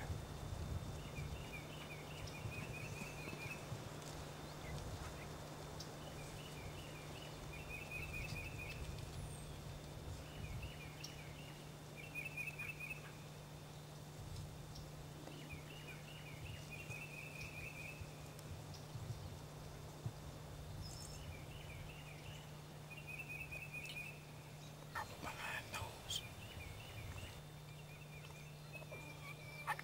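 Quiet woodland: a songbird repeats a short high trilled phrase every couple of seconds over a faint low hum. Near the end a wild turkey calls in a quick series of notes.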